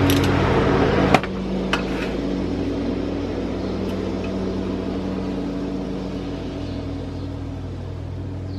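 Ratchet clicking on a valve spring compressor on a 5.3 cylinder head, then a sharp metal clank about a second in and a couple of lighter metal clicks. A steady low machine hum sits under it all.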